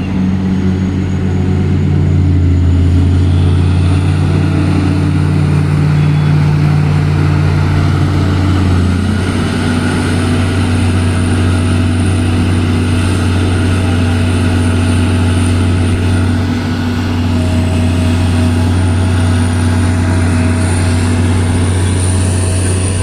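Heavy diesel mining machinery running continuously, a hydraulic excavator and dump truck at work, with a steady low engine drone; the engine note changes about nine seconds in as the load shifts.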